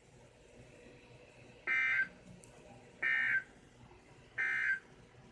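Three short bursts of Emergency Alert System digital data tones, a harsh two-pitch warble, each under half a second and about a second and a half apart: the end-of-message code that closes the severe thunderstorm warning broadcast.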